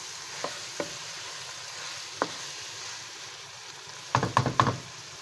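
Minced meat and sliced green capsicum sizzling in oil in a nonstick wok while being stirred with a wooden spatula: a steady frying hiss with a few light taps. About four seconds in comes a quick cluster of louder knocks and clatter.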